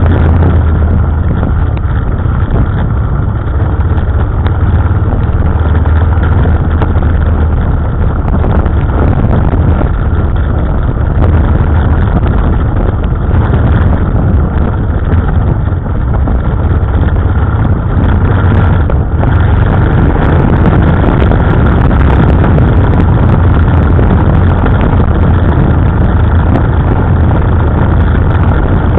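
KTM 990 Adventure's V-twin engine running steadily as the bike is ridden along a trail, heard from a camera mounted on the bike.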